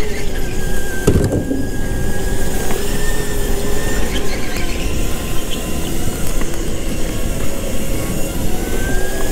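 Go-kart running on track: a steady motor whine over rushing noise, its pitch dipping slightly and climbing again near the end. A brief knock about a second in.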